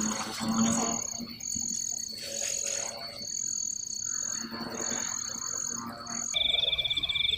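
Night animal chorus dominated by insects: a steady high whine with a run of about seven repeated high-pitched notes, each half a second to a second long, over a fainter lower chorus of calls.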